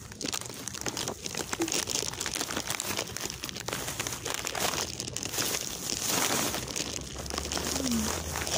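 Close crinkling and rustling noise, a dense irregular run of small crackles throughout.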